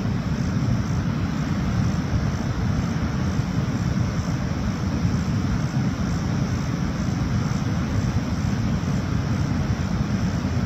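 Steady low rumbling noise, heaviest in the bass, with no separate events.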